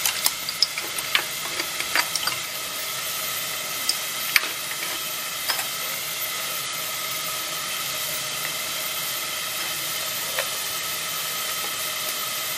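Steady steam hiss from the blower of a 2-inch scale Burrell traction engine model, drawing its coal fire. Sharp clicks and taps, most of them in the first half, as coal is fed into the firebox.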